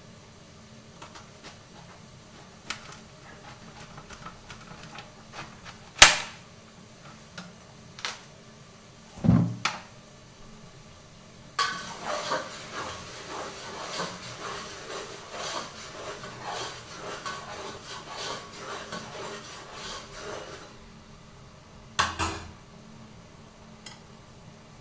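Kitchen clatter: light knocks of a knife cutting cabbage on a metal tray, one sharp clack and a dull thud, then about nine seconds of pots and utensils clattering on the gas stove, with another knock near the end.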